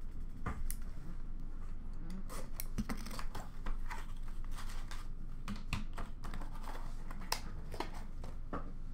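Hands opening a cardboard card box and handling the paper and cards inside: scattered small clicks, taps and paper rustles.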